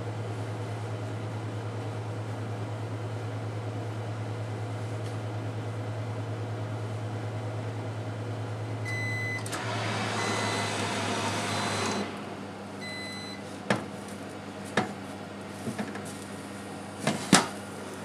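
Sharp AX-HC2 steam oven running in oven mode with a steady low hum, which stops about nine seconds in as its end-of-cooking beeps sound. A hiss follows for a couple of seconds as the oven door is opened on the hot roast pork, then several sharp metallic knocks and clatters as the pork on the rack is turned over.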